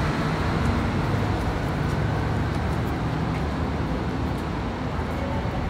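Low, steady rumble of a heavy-haul truck and the traffic around it moving away, slowly fading.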